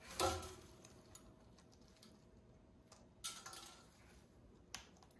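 Pet parrot making two short, raspy vocal sounds, the first and loudest right at the start and a softer one about three seconds later, followed by a single sharp click near the end.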